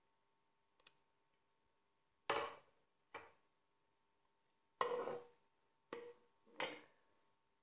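A metal spoon knocking and scraping against a steel cooking pot and a bowl as food is tipped into the stock: five short clattering knocks spread over a few seconds.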